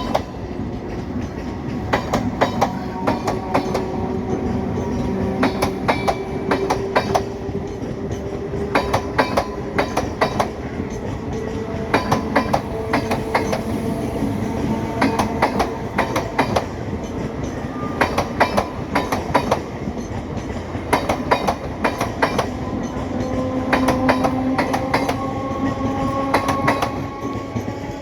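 BEML-built electric multiple unit (EMU) suburban train accelerating away from a station. The wheels click in quick clusters over rail joints, while a whine rises in pitch several times over as the train gathers speed.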